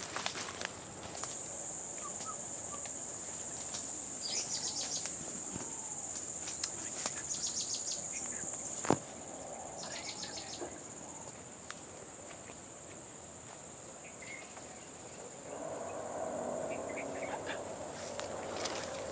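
Steady high-pitched drone of insects in scrub forest, with short rapid trills now and then, and scattered snaps and crackles of people walking through dry undergrowth. A sharp snap about halfway through, after which the insect drone is fainter.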